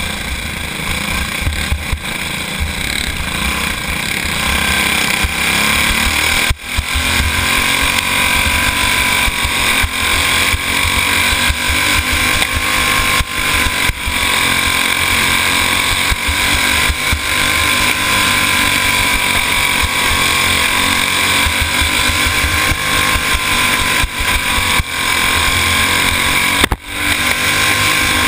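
Go-kart engine heard from onboard at racing speed, its pitch rising and falling as the kart goes through the turns. The sound drops sharply for a moment twice.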